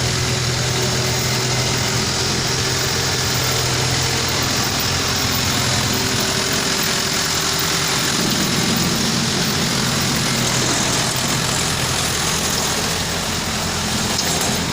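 Backhoe engine running steadily with a constant low hum, shifting slightly in tone about halfway through.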